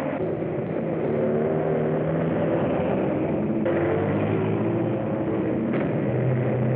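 Vehicle engine running, heard on an early sound-film track: a steady hum of several low tones with noise above. It changes abruptly twice, about three and a half and about six seconds in.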